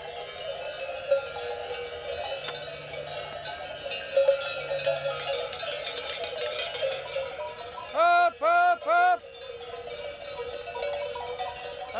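Many cowbells on a moving herd of cows, clanging and jangling without a break. About eight seconds in come three short calls, each rising then falling in pitch.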